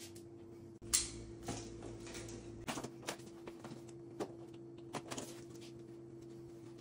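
A black cardboard shipping box being handled and opened by hand: scattered clicks, taps and scrapes of the box and its lid, the loudest about a second in. A steady low hum runs underneath.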